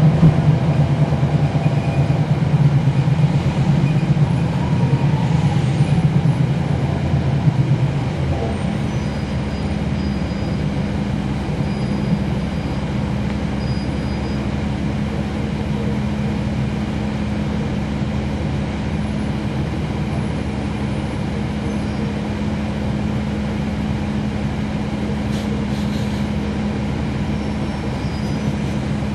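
Inside a 2011 NABI 40-SFW transit bus, its Cummins ISL9 diesel engine and ZF Ecolife six-speed automatic transmission are running. The drone is louder for the first eight seconds or so, then changes to a quieter, steady drone.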